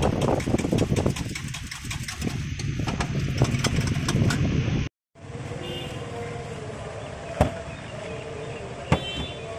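Potato fries deep-frying in a street-stall fryer: hot oil sizzling and crackling loudly while the wire frying basket of fries is lifted and shaken. After a sudden break about five seconds in, the sound turns to a quieter steady frying with a low hum and a couple of sharp metal clicks.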